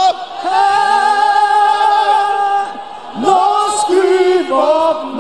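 Worship singing: several voices holding long, drawn-out notes with vibrato, in three slow phrases with brief breaths between them.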